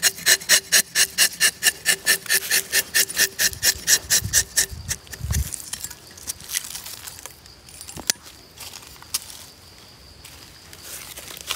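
A hooked rubber-tapping knife shaves a thin strip of bark from the tapping cut of a para rubber tree. It makes a fast run of rasping scrapes, about four or five a second, for nearly five seconds. Fainter scattered scrapes and a sharp tick follow.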